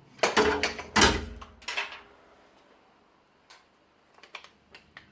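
A hard plastic window-gasket lock strip being cut to length and handled: a cluster of loud knocks and scrapes with a heavy thump about a second in, then a few light clicks.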